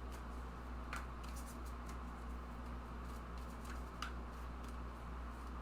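A few faint clicks and taps of tarot cards being handled while a clarifier card is drawn, over a steady low hum.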